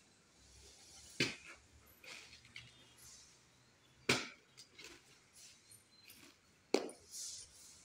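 Three sharp chopping strikes of a hand axe into a kitul palm trunk, about two and a half seconds apart, with a few lighter knocks between them.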